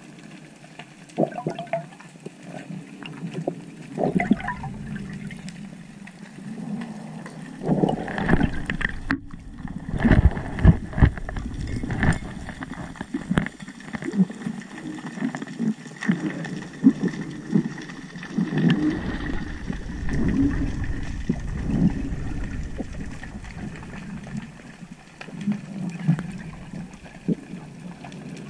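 Muffled underwater sound through a camera housing: water swishing and gurgling with irregular low rumbles and scattered knocks and clicks as a freediver kicks with long fins.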